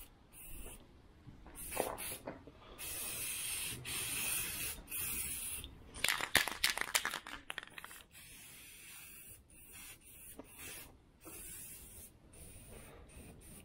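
Aerosol can of black plastic paint spraying in several bursts, hissing as it starts and stops while coats are laid on the grille. A quick run of sharp clicks comes about six to seven seconds in.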